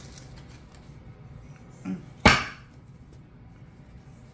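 A card or deck of cards slapped down on a table: one sharp knock about two seconds in, with a fainter tap just before it.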